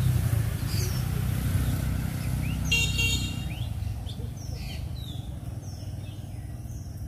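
A motor vehicle going past with a low rumble that fades away after about four seconds, with a short horn toot about three seconds in. Birds chirp in the second half.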